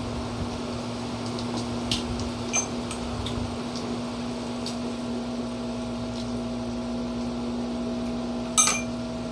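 A few sharp clinks of a spoon and cutlery against dishes, the loudest near the end, over a steady electrical hum.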